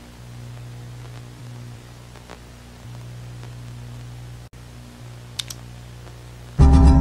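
A low, steady electronic hum with faint static hiss, broken by two quick clicks a little past halfway. Near the end a sudden, loud, harsh distorted buzzing tone cuts in.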